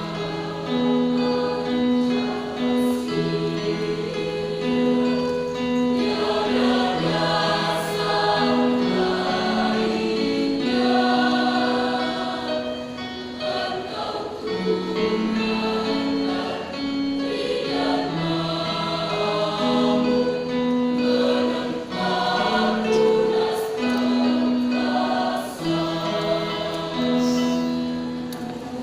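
A choir singing in several parts, with the voices holding long notes in harmony.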